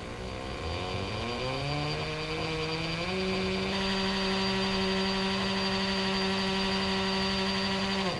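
Hammer drill with a 3/16-inch masonry bit boring into the mortar of a brick wall: the motor whine rises as it speeds up over the first three seconds, runs steady at full speed, then stops suddenly at the end.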